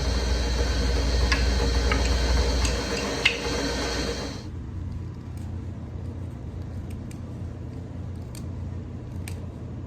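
An old Delta table saw running. It cuts off abruptly about four and a half seconds in, leaving a lower hum and a few light clicks and taps.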